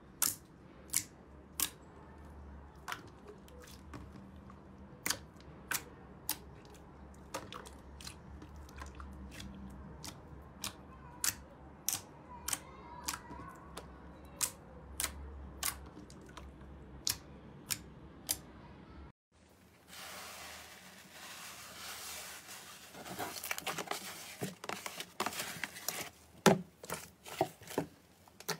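Slime being handled for ASMR: a run of sharp, separate pops and clicks, about one or two a second, over a low hum. After an abrupt cut, a denser crackling with more clicks follows.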